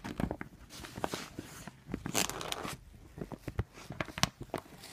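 Fabric BMX gear bag being handled: cloth rustling with scattered clicks and knocks, and a longer rustle about two seconds in.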